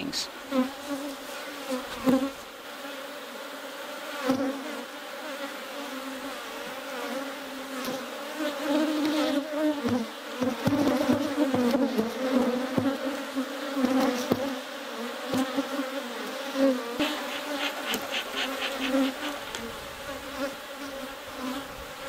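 Honeybees buzzing around an open hive, a hum that wavers as bees fly close past the microphone, with a few light knocks. The colony has just been alerted by a sting.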